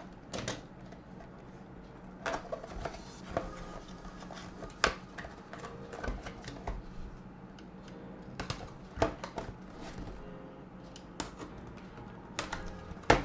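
Fingers handling a small cardboard retail box and peeling its paper seal tabs: scattered scratches and rustles with occasional sharp clicks and taps, the loudest near the end.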